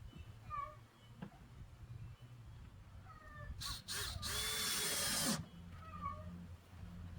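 Power drill driving a gasketed roofing screw down through a roof panel: two short spins, then one steady run of under two seconds just past the middle.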